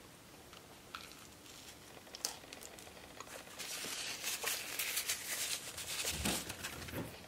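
A paper napkin crumpling and rustling in the hand, loudest in the middle, after a few soft clicks of chewing on fried chicken. A few dull knocks of handling near the end.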